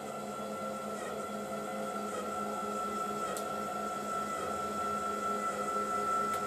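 Electric linear actuator's motor whining steadily as it draws a sliding drawer in on its runners. The whine grows slightly louder over a few seconds.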